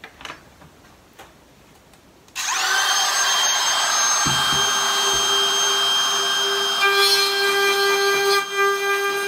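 Cordless trim router switched on about two seconds in, spinning up to a loud steady high whine as it routes a shallow 3 mm recess into lightweight plywood by hand. A couple of light clicks come before it starts.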